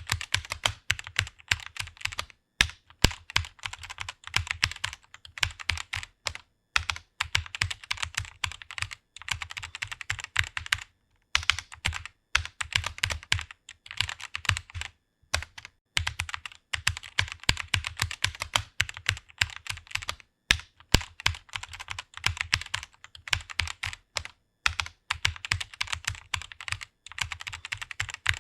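Fast typing on a computer keyboard: rapid runs of key clicks with brief pauses between words and phrases.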